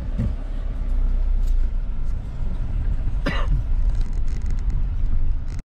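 Steady low rumble of a car's engine and tyres heard from inside the cabin while driving, with one short sharp sound about three seconds in. The sound cuts out abruptly for a moment just before the end.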